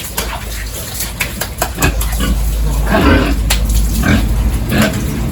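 Pigs grunting, with several short calls (the loudest about three seconds in) among scattered knocks and clatters.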